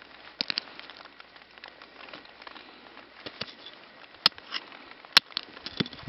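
Light rain pattering, with a handful of sharp clicks and knocks: a quick cluster about half a second in, and two louder single cracks near the end.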